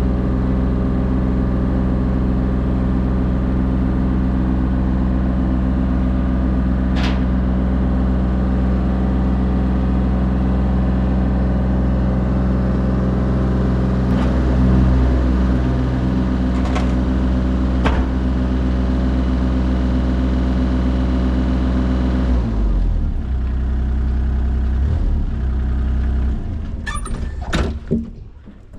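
Electric water pump for the tank install running with a steady, loud hum. It switches off about 22 seconds in and winds down, followed by a few knocks and clatter near the end.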